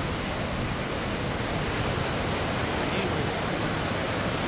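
Steady, even rushing noise of surf and wind, with the distant P-51D Mustang's engine droning faintly underneath.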